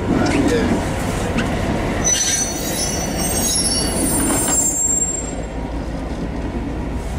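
Irish A class diesel-electric locomotive A39 passing slowly at close range, its engine and running gear making a steady low rumble. Its wheel flanges squeal in several thin, high tones from about two seconds in until about five seconds in.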